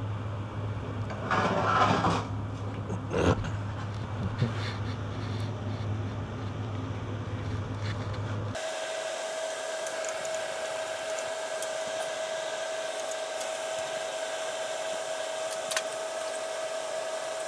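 Metal tool handling on an engine bench: a short scraping rattle and a few sharp clicks. About eight seconds in, the sound switches abruptly to a steady high-pitched whine with faint ticks.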